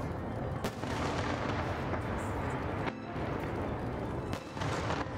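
Fireworks going off: a dense, continuous rumble of bursts and crackle, with sharp bangs standing out about a second in, about three seconds in and near the end.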